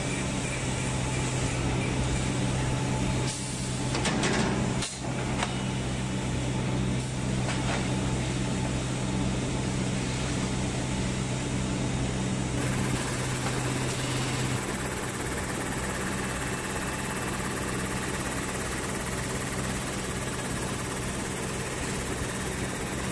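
Maxi jumbo roll tissue rewinding and cutting line running: a steady mechanical machine noise with a low drone. A brief burst of noise comes about four seconds in, and the low drone drops away about two-thirds of the way through.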